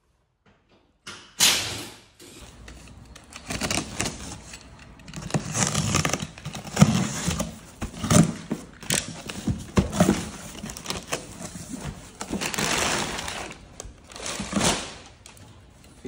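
A cardboard box being unpacked: crumpled kraft packing paper rustling and crinkling, with cardboard flaps handled and a few knocks. It starts suddenly about a second in, after silence.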